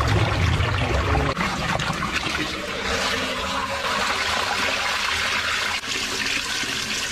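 Water rushing and trickling away down a drain trap as it clears after being unblocked, heavier and lower for about the first second and a half, then a steady hiss.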